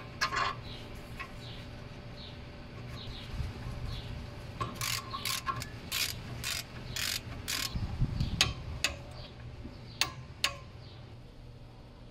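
Socket ratchet clicking in short runs as a bolt on a Mercedes W212 front brake assembly is turned and tightened. Two sharper single clicks come about half a second apart, a couple of seconds before the end.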